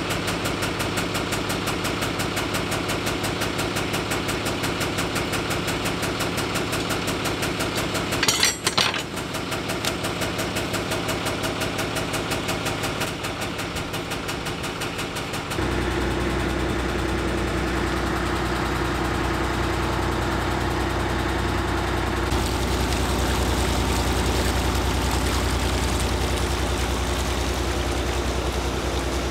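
Narrowboat's engine running with a fast, regular beat and a brief louder clatter about eight seconds in. About halfway through it turns to a deeper, steadier drone.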